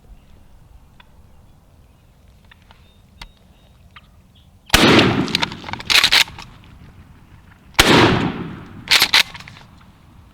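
Two shotgun blasts about three seconds apart, each ringing off into the woods, with a shorter burst of noise about a second after each. These are shots at a tom turkey that was apparently too far out, and the shooting ended in a miss.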